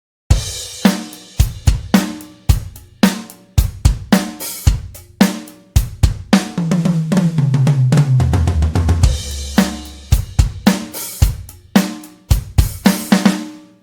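Sampled acoustic drum kit from Toontrack EZDrummer 3 playing a steady beat of kick, snare, hi-hat and cymbals. About halfway through a fill runs down the toms, falling in pitch, then the beat comes back and stops near the end.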